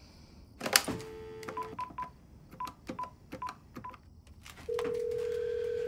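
GE cordless desk phone being used to place a call: the handset is lifted with a click, a brief dial tone sounds, and about ten keypad beeps follow as a number is dialled. Near the end a steady ringback tone starts as the call rings through.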